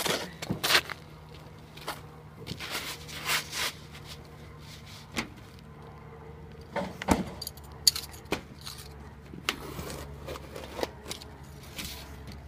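Asphalt roofing shingles being handled, slid and pressed into place against a metal roof vent's flashing: scattered short scrapes, rustles and clicks, irregular and unhurried.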